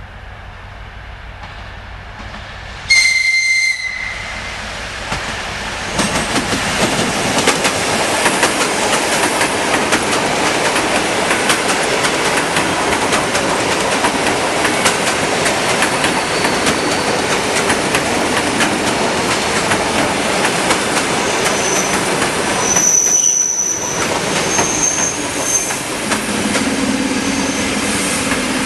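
A suburban electric multiple unit gives one short, high horn blast about three seconds in, then passes at speed with steady wheel clatter over the rail joints. A brief high squeal from the wheels comes near the end, as the last cars go by.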